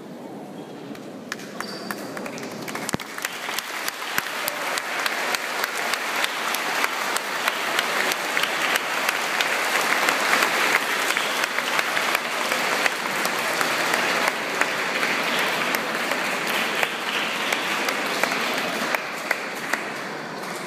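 Congregation applauding, many people clapping together. The clapping builds up over the first few seconds, holds for a while, and dies away near the end.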